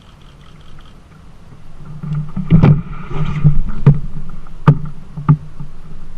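Kayak being moved and paddled through water: about two quiet seconds, then sloshing and rumble with four or five sharp knocks on the hull.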